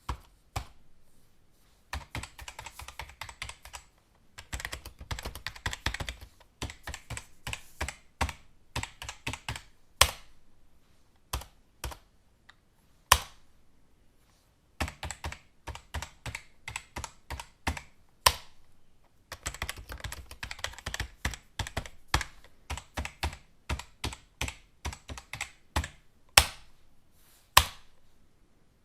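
Typing on a computer keyboard: bursts of rapid keystrokes broken by short pauses, with now and then a single louder key strike.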